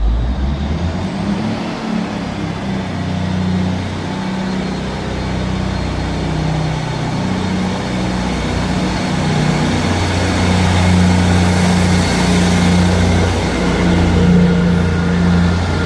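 Diesel locomotive engine working under power as the train moves off: a deep, steady engine throb that grows louder through the middle and eases slightly near the end.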